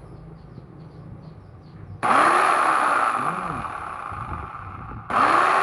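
LOTUS 800W electric jigsaw switched on about two seconds in, its motor and blade mechanism running with a loud whir that slowly fades. It cuts out just before the end and is switched straight back on.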